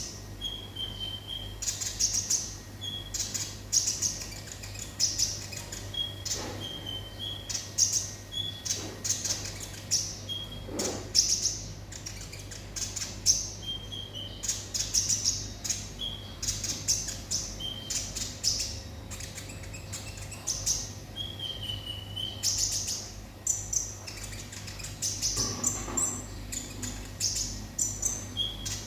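Kolibri ninja sunbird singing nonstop: rapid runs of high, thin chirps broken by short falling whistled notes, repeated every second or so, over a faint steady low hum.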